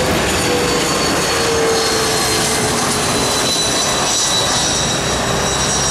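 Twin rear-mounted turbofans of a Bombardier CRJ regional jet on landing approach: a loud, steady roar with high whining tones that slowly fall in pitch as the jet passes.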